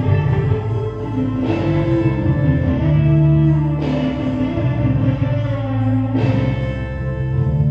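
Music with a sustained low bass and held chords, a new chord struck about every two and a half seconds.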